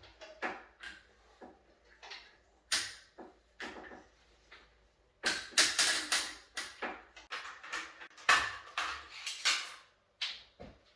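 Irregular metallic clicks and knocks of bottom bracket parts and tools being handled and fitted into the frame's press-fit shell, scattered at first, then a dense, louder run of knocks about halfway through.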